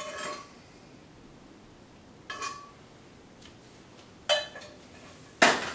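Sharp clinks of a utensil against a black skillet as the honey garlic sauce is scraped out over plated chicken, coming about every second and a half to two seconds. The loudest clank is near the end, as the skillet goes back down on the stovetop.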